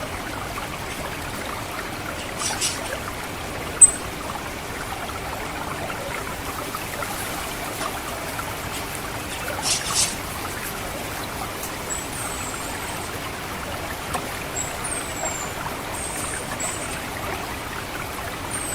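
Water trickling steadily through a rice paddy, with the thin, high 'ngecit' calls of an orange-headed thrush: a sharp single note about four seconds in, then several short downward-sliding notes in the second half.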